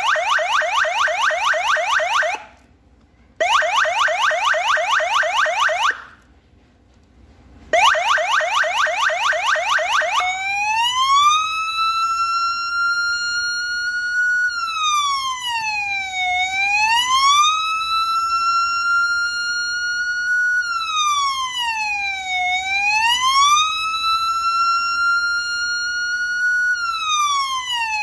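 Electronic siren sounding. It gives three short bursts of a rapid yelp, with brief gaps between them. About ten seconds in it changes to a slow wail that rises, holds high and falls, about once every six seconds.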